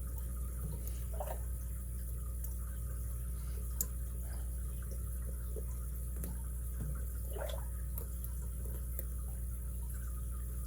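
Faint, scattered small metallic ticks of a lock pick and tension wrench working the pin stack of a 38 mm brass Eagle padlock, with one sharper click about four seconds in, over a steady low hum.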